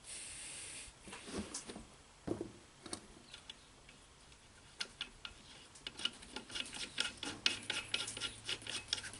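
Small metal parts and tools clicking, clinking and scraping against each other while a throttle-body injection unit is put back together. There is a short hiss at the very start, and the clicks come quick and close together in the last few seconds.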